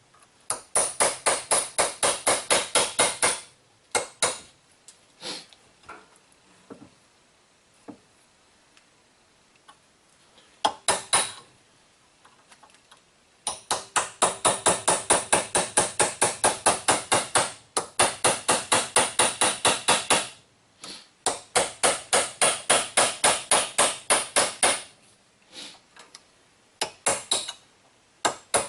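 Hammer striking metal in quick runs of blows, about four or five a second, with pauses between the runs, to knock a rusted brake caliper bolt boot's metal collar out of its bore.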